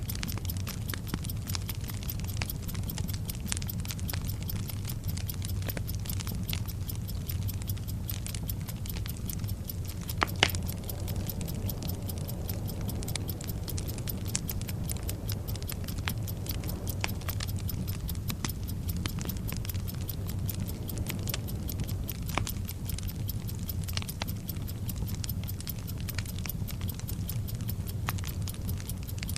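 Burning-fuse sound effect crackling and sputtering steadily over a low hum, with clock-like ticking, and a louder pop about ten seconds in.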